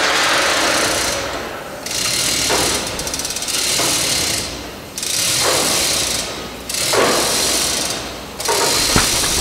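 Pneumatic rivet gun hammering rivets into the aircraft's aluminium skin in repeated bursts of one to two seconds, about five in all, with short pauses between.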